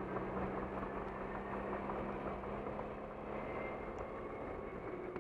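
Car driving on a highway, heard from inside the cabin: a steady hum of engine and tyre noise.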